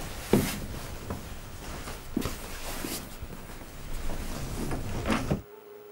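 Several people moving about in a small room: shuffling footsteps, rustling winter jackets and a few short knocks, the sharpest about a third of a second in. The sound drops away suddenly near the end.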